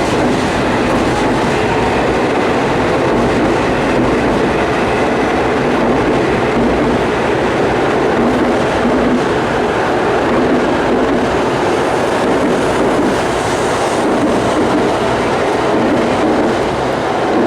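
Shinkansen train moving along the platform with a steady running noise.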